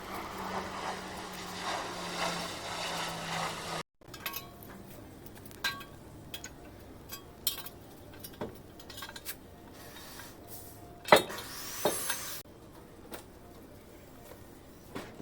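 Hand tools clinking and knocking against metal parts in scattered, irregular strikes, with the loudest knocks about eleven and twelve seconds in. At the start a steady low hum runs for about four seconds and cuts off abruptly.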